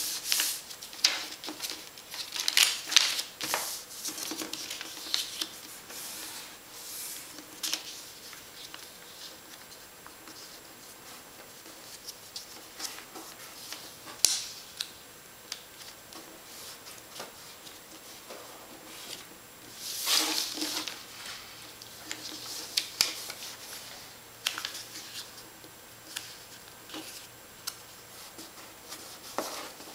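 A sheet of white paper being folded by hand: rustling as it is handled and turned, with short scrapes as fingers press and run along the creases. The loudest bursts come in the first few seconds and again about two-thirds of the way through.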